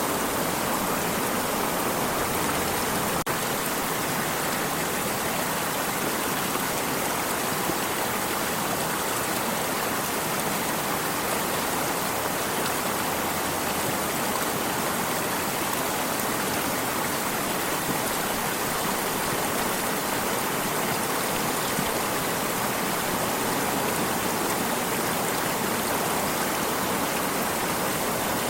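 Flowing water of a stream running steadily, an even rushing with no change.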